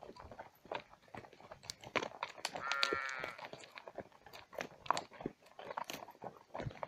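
Horse walking on a dry dirt and gravel track, its hooves striking in an irregular run of clicks and knocks. A short wavering pitched call sounds briefly about three seconds in.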